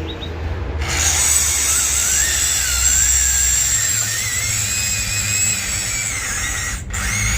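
Corded Sawzall reciprocating saw running under load, its motor whine wavering up and down in pitch; it stops for an instant near the end and starts again. The saw is overheating and on its last legs.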